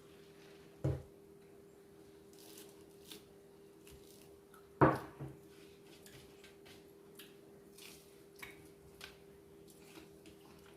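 People eating at a table: scattered small clicks, rustles and chewing sounds of food being handled and eaten, with two sharp, louder knocks, about a second in and near the middle, of something set down or struck on the table. A faint steady hum runs underneath.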